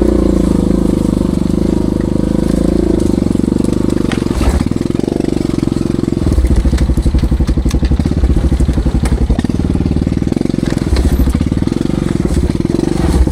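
ATV engine revving hard under load, straining against a tree stump it is hung up on. About four seconds in the note drops, with a few knocks, and from about six seconds the engine lugs at a lower, pulsing speed.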